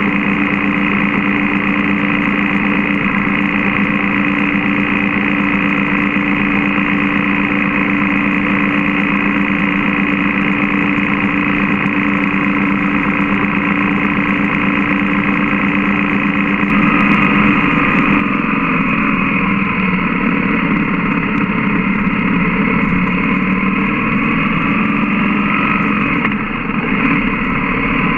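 BMW GS motorcycle's flat-twin boxer engine running at a steady cruise, mixed with wind and road noise on a bike-mounted camera. About two-thirds of the way through, the engine note changes and shifts in pitch.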